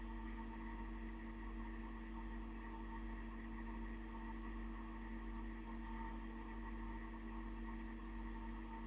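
Steady background hum with several fixed tones over a low drone and faint hiss, unchanging throughout; no sound from the insect itself.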